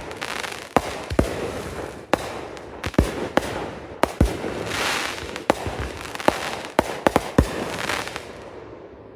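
Consumer fireworks display going off: a rapid, irregular series of sharp bangs from aerial shells and cakes, two to three a second, over stretches of hissing crackle. The bangs thin out and fade near the end.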